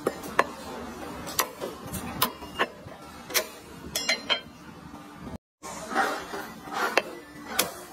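A kitchen knife striking a cutting board while meat is sliced, in sharp irregular knocks and clicks, with a few short scraping sounds.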